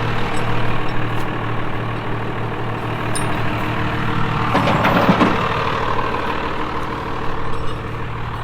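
Backhoe's diesel engine running steadily while it drags the dirt road flat, with a louder rushing surge about halfway through.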